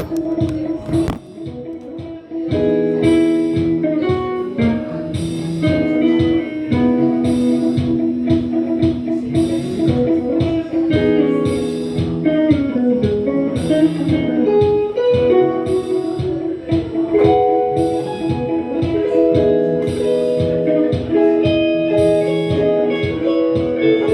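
Electric guitar played through a Roland JC-120 Jazz Chorus amplifier, a run of changing jazz-style chords. A short high hit marks a regular beat about every second and a half.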